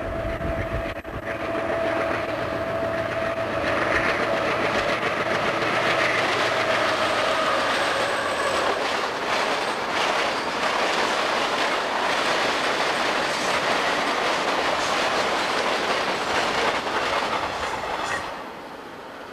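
Union Pacific freight cars rolling past close by: a steady loud rush of steel wheels on rail, with scattered clicks as the wheels cross rail joints. A thin steady whine sounds over the first few seconds. The noise cuts off sharply near the end as the last car goes by.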